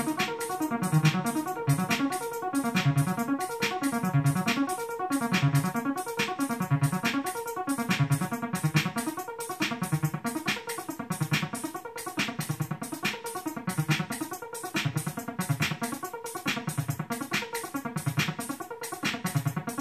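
Electronic music played live on a Roland EG-101 groovebox: a steady quick beat of about four hits a second under keyboard synth parts and a repeating bass line.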